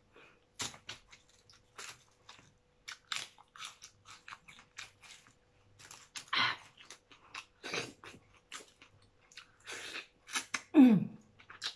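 Close-up eating of cooked crab: wet chewing, crunching and smacking clicks as the shell and meat are picked and bitten. Near the end there is a louder mouth sound, falling in pitch, as meat is sucked from a piece of crab.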